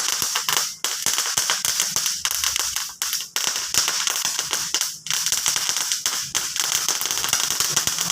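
Firecrackers going off in a rapid, dense string of cracks, almost without a break, with a few brief gaps.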